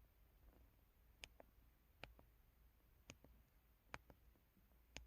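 Near silence with faint, sharp clicks about once a second.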